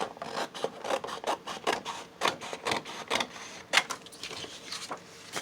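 Sheets of craft paper being handled, with irregular rustling and crinkling.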